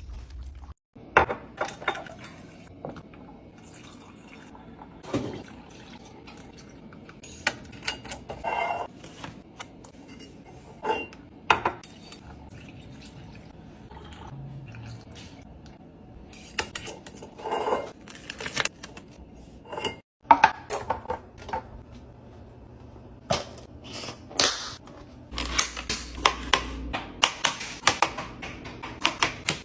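Household containers and kitchenware being handled and set down: a string of irregular clicks, knocks and clinks, some with a short liquid pour or drip. The sound drops out briefly about twenty seconds in, then the clicking grows busier.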